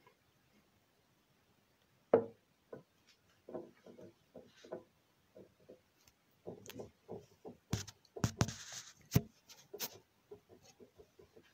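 Irregular knocks and taps of objects being handled and set down on a hard surface: one sharp knock about two seconds in, then lighter taps that grow busier about eight seconds in, with a short rustle among them.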